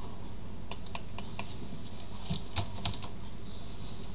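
Computer keyboard keystrokes typing, in two short irregular runs of clicks, over a faint steady hum.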